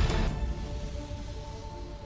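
Dark, low background music with held tones, fading down in level.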